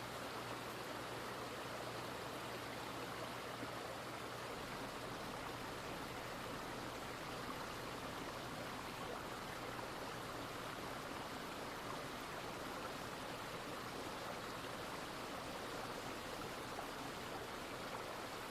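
Running water of a stream, a soft, steady, even rush that never changes.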